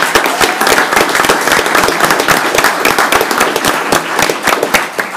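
Room full of people applauding: dense, loud clapping that thins out near the end.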